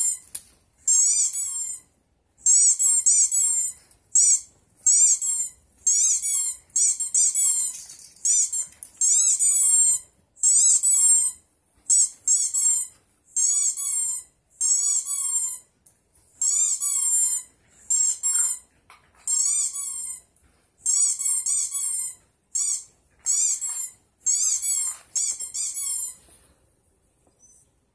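Squeaky toy sound effect played through laptop speakers: quick runs of high, squeezed squeaks in bursts with short gaps, stopping about two seconds before the end.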